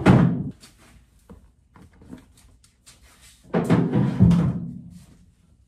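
Two heavy hollow thuds as car engine covers are handled in a pickup bed: one right at the start, and a longer one about three and a half seconds in whose tail dies away over a second or so, with small knocks and clicks between.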